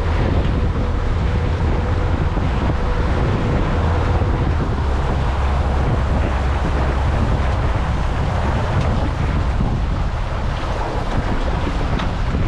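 Steady wind buffeting the microphone over the low, even rumble of a small boat under way on the water.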